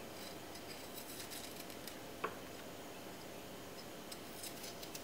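Faint, scattered scratches of a small sharp knife scraping the skin off a ginger root, with one soft click a little over two seconds in.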